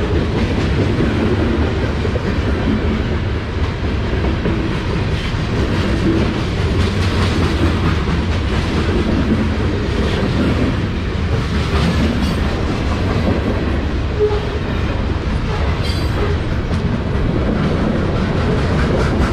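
Loaded freight cars of a Ferromex freight train (gondolas and boxcars) rolling past close by at speed: a steady heavy rumble with the clatter of steel wheels on the rails.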